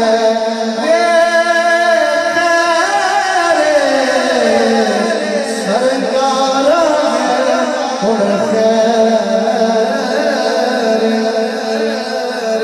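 A man singing a naat into a handheld microphone over a PA. He draws out one long, wavering phrase that slides down in pitch around the middle, over a steady low drone.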